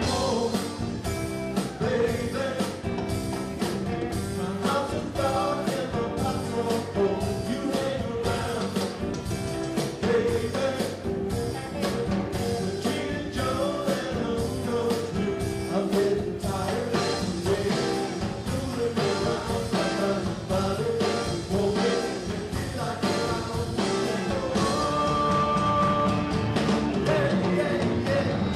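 Live Latin rock band playing: a male lead vocal over organ, electric guitar, electric bass, drum kit and congas.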